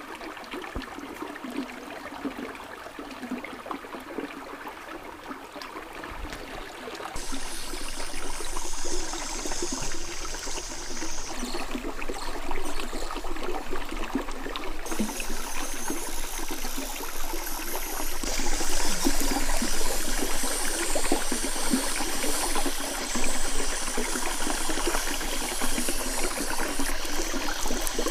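Shallow stream running steadily over stones. About seven seconds in, a louder high hiss joins it and stays to the end, shifting abruptly a few times.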